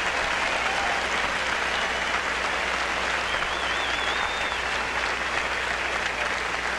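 Stadium crowd applauding steadily, with a brief wavering whistle about three seconds in.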